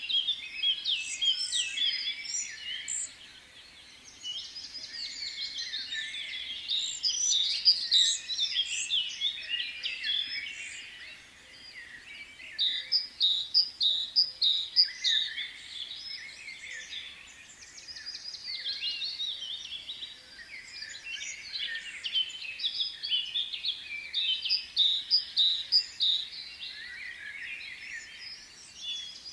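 Many small birds chirping and twittering at once, their calls overlapping continuously, with runs of sharp, quickly repeated chirps about halfway through and again near the end.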